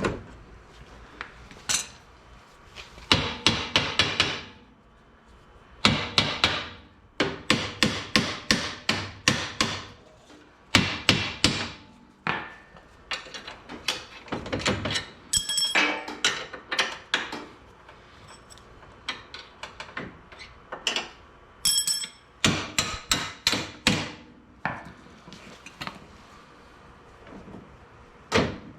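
Hammer blows on metal in quick flurries of strikes with short pauses between, some strikes ringing, as a trailing arm or radius rod is knocked into place on a UTV's rear suspension.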